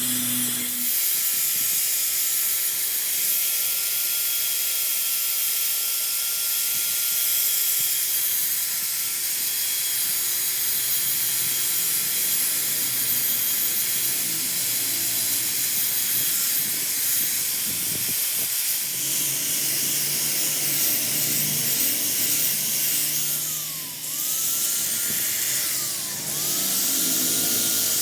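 Steady loud hiss of escaping air with a faint high whine running through it; the hiss briefly drops away twice near the end.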